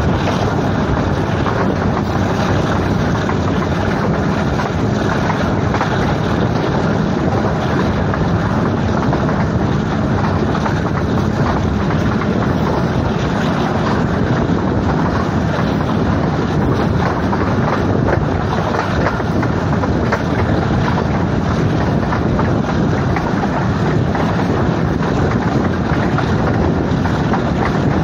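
Passenger train running: a steady, unbroken rumble with wind blowing across the microphone.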